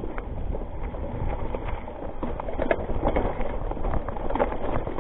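Rockrider ST 520 hardtail mountain bike rattling over rocks and leaves on a descent: many irregular knocks and clicks from the bike and tyres over a steady low rumble.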